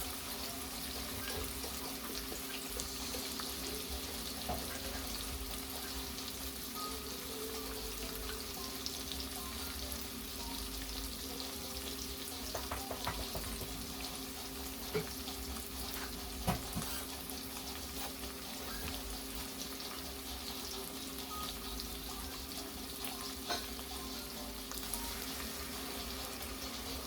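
Saltfish frying in a pan: a steady sizzle, with a few light clicks and knocks of a utensil against the pan.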